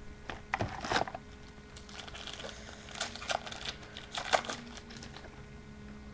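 Baseball cards and foil pack wrappers being handled: crinkling and light clicks in four short clusters about a second apart.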